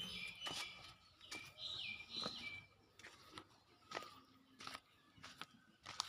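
Two chickens fighting: a few short, high calls in the first two seconds, with scattered sharp knocks and scuffs from the scuffle.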